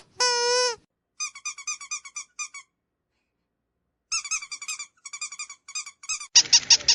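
Dog squeaky toys being squeezed. A drawn-out wavering squeak ends just after the start, then come two runs of quick, short, high squeaks with a pause between them. Near the end a different toy gives a harsher, rapid, pulsing squeak.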